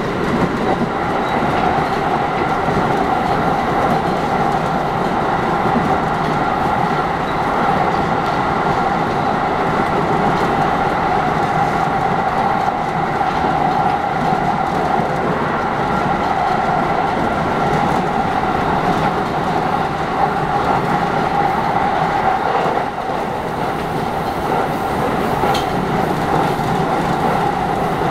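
JR East 211 series electric multiple unit running along the line, heard from inside the front cab: a steady, continuous running noise with a constant whine.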